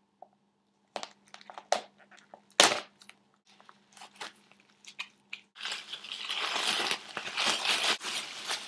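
Plastic emergency rain poncho and its packet being handled: scattered sharp crinkles as the packet is opened, then, a little past halfway, continuous crinkling and rustling as the thin plastic sheet is shaken out.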